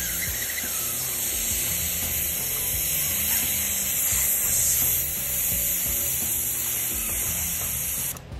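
Airbrush spraying cleaning fluid out through its nozzle: a steady high hiss that cuts off suddenly near the end. Background music plays underneath.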